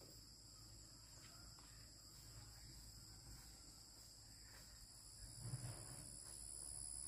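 Faint, steady high-pitched insect chirring made of several even tones; another, higher tone joins about five seconds in. A soft low thump comes about five and a half seconds in.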